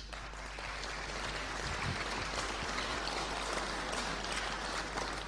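Audience applauding, a steady patter of many hands clapping that builds over the first couple of seconds and eases off near the end.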